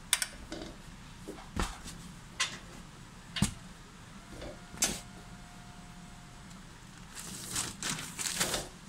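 Irregular sharp knocks and clicks, about five spread over the first five seconds, then a denser run of clatter and rustling near the end.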